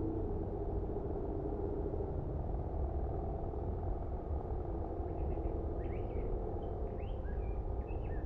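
Outdoor ambience: a steady low rumble with a faint hum, and small birds chirping from about five seconds in.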